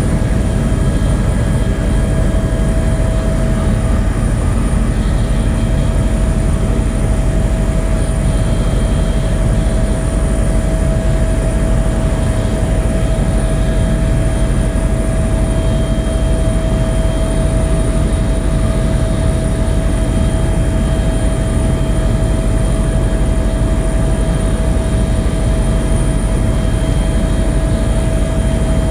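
Light aircraft in flight, its engine and propeller droning steadily inside the cabin, with a constant whine riding over the rumble.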